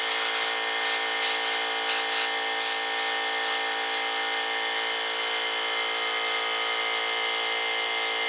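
Central Pneumatic 21-gallon, 2½ HP cast-iron vertical air compressor running with a steady hum. About nine short hisses of air come in the first few seconds.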